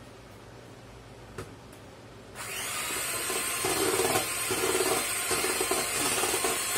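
Electric hand mixer switched on about two and a half seconds in, its motor running steadily as the beaters mix cake batter in a stainless steel bowl.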